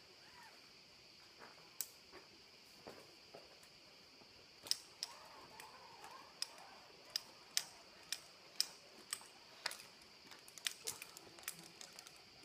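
Sharp, irregular clicks and taps from a rock climber's hands, shoes and gear on a limestone wall, sparse at first and coming thick and fast from about five seconds in, over a steady high hiss.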